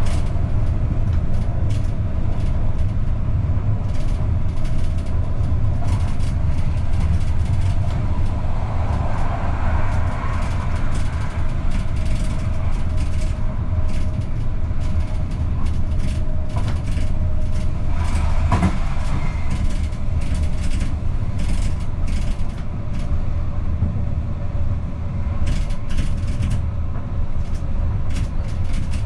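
AVG Stadtbahn light-rail car running at speed on mainline track, heard from the driver's cab: a steady low rumble of wheels on rails under a faint steady whine, with scattered short clicks.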